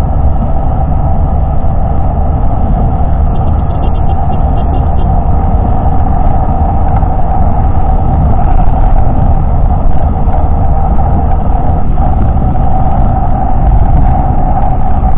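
Suzuki Raider J115 Fi motorcycle's small single-cylinder four-stroke engine running at a steady cruise, heard under heavy wind rush on the camera microphone.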